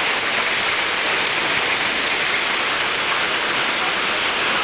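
Hailstorm: hail and heavy rain pelting down in a steady, dense hiss, with no single strikes standing out.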